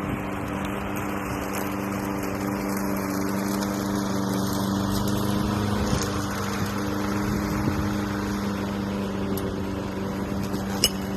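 A motor or engine running steadily with a low, even hum under a rushing noise, and a few sharp knocks near the end.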